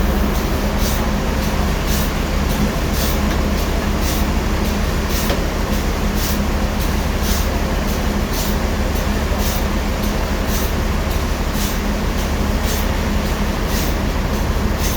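Sawmill machinery running steadily with a low hum, and a faint high ticking about twice a second.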